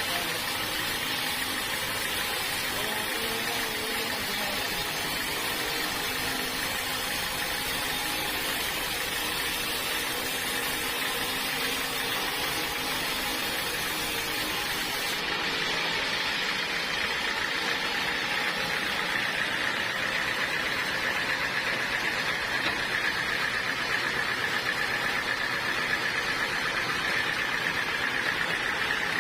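Sawmill machinery running steadily. About halfway through, the sound changes and a steady high whine comes in and grows a little louder.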